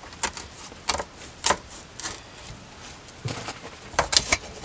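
A run of sharp knocks and clunks, about seven in four seconds, as the freshly removed aluminum OMC stern drive intermediate housing is handled.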